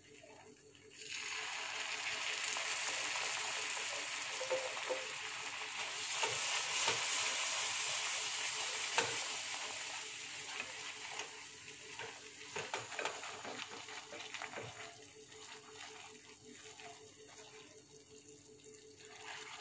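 Peanut butter sauce sizzling and bubbling in a non-stick frying pan, the hiss starting suddenly about a second in. In the second half it is weaker, and a silicone spatula stirs and scrapes through the sauce in short strokes.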